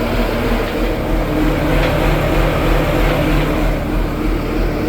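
Old Taylor forklift's engine running steadily, with a pulsing low drone; its note shifts briefly about midway.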